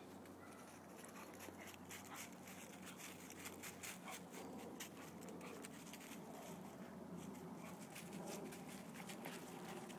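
Faint irregular rustling and crackling of footsteps moving through woodland leaf litter, thickest in the first half, over a low steady hum.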